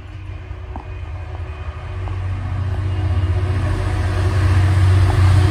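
EWS Class 66 diesel-electric locomotive 66158 approaching, its two-stroke V12 EMD engine running with a steady low drone that grows steadily louder as it nears.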